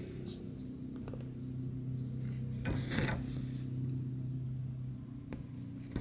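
Embroidery floss being pulled through cross-stitch Aida fabric with a needle: a short rasping pull about halfway through and another at the end, over a low steady hum.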